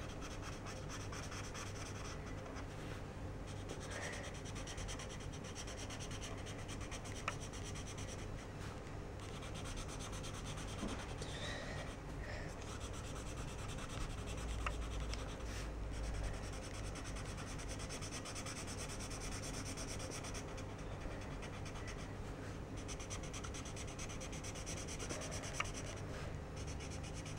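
Felt-tip marker rubbing back and forth on notebook paper as daisy petals are coloured in blue, a steady rubbing with a few small clicks.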